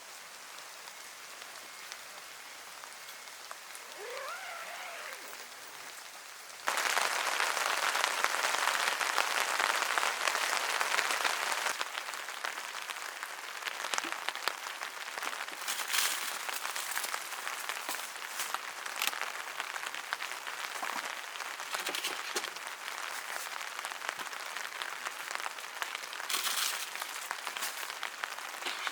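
Rain pattering steadily. About seven seconds in it suddenly becomes much louder and denser, with scattered heavier drops tapping.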